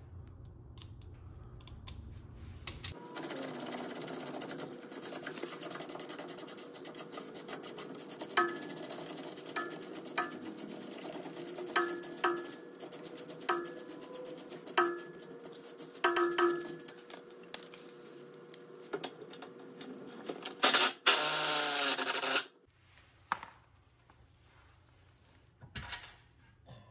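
Hand ratchet clicking rapidly as it backs out the crossmember bolts of a car's rear suspension, with sharp metal clinks of the socket and tool every second or so. A short, louder burst comes near the end.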